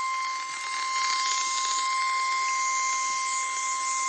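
NOAA Weather Radio warning alarm tone: a single steady 1050 Hz tone held unbroken, heard over a radio's static hiss, signalling that a warning message is about to be broadcast.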